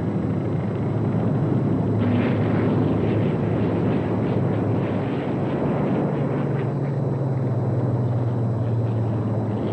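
Piston-engine propeller aircraft droning: a dense, steady rumble, with a low steady hum that grows stronger about six seconds in.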